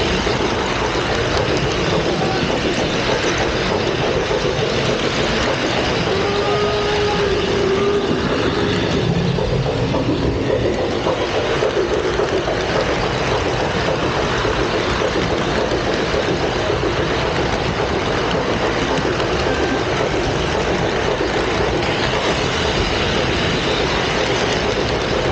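Model train running on a layout track, heard from a car riding in the train: a steady rolling noise of wheels and running gear on the rails.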